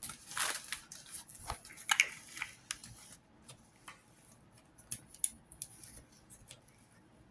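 Crackling and clicking of a diamond painting canvas and its plastic film being handled and flattened out. The noise is busiest for the first three seconds, then thins to scattered light clicks.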